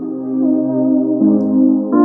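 Soft ambient synthesizer music playing from a Tracer PowerBox BT portable speaker in microSD (TF) card mode, with the sustained chord changing about a second in.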